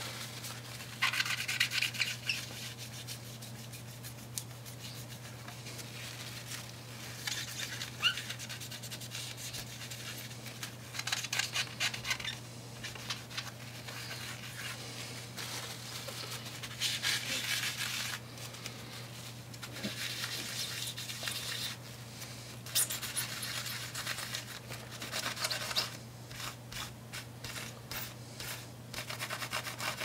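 Cloth dampened with isopropyl alcohol wiping old thermal paste off a laptop's CPU and GPU chips: repeated bursts of rubbing, turning into quick back-and-forth strokes, about three a second, near the end.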